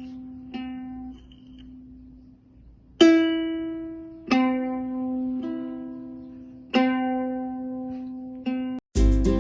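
Background music: slow single plucked-string notes, about six of them, each ringing out and fading. Near the end the sound cuts out briefly and busier music with a deep bass comes in.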